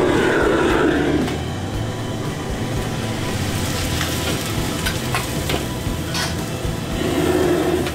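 Gas wok burner flaring loudly and food sizzling in a wok, loudest in the first second and swelling again near the end, while a metal ladle scrapes and clanks against the wok a few times as the food is stirred.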